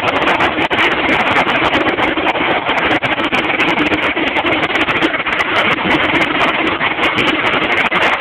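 Harrier jump jet hovering, its Rolls-Royce Pegasus vectored-thrust turbofan giving a loud, steady jet roar.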